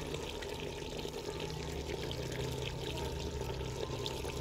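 Potato-and-cauliflower curry simmering in an open clay pot: a steady bubbling with scattered small pops.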